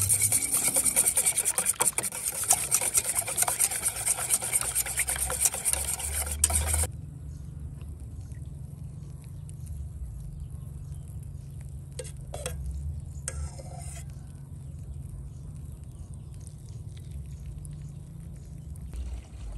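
Dense crackling and sizzling of cooking, full of sharp clicks, for about seven seconds, cutting off suddenly. A quieter low rumble follows, with a couple of clicks and a brief scrape a little past halfway.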